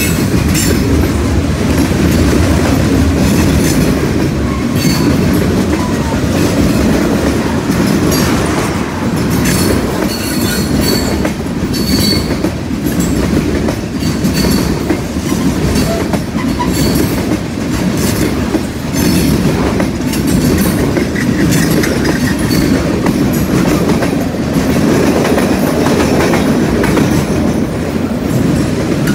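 Freight cars of a passing train rolling by steadily, with a continuous rumble and wheels clacking over the track joints. A few brief, faint high wheel squeals come in around the middle.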